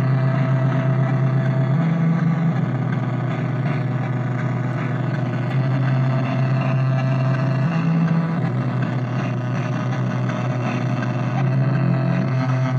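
DIY Dronebird drone synthesizer making a buzzy, gritty drone on a steady low pitch, which steps up briefly about two seconds in and again about eight seconds in.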